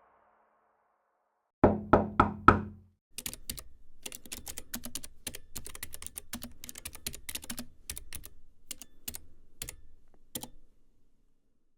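Four quick, loud knocks, followed by several seconds of rapid, irregular computer keyboard typing clicks that stop near the end.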